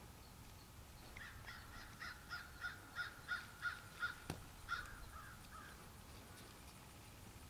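A crow cawing in a rapid series, about three calls a second for some four seconds, with one sharp click partway through.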